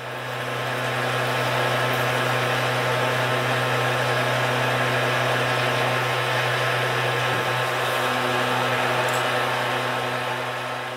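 Orion 4.5 Digit benchtop milling machine running steadily, its spindle turning a cutter into a clamped metal plate, with a constant motor hum and whine.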